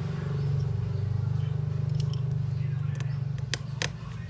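A steady low electrical hum, with a few sharp small clicks, two of them close together near the end.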